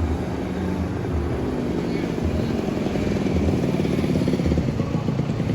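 Engine of a motor vehicle running close by, a dense rumble that grows louder about three seconds in.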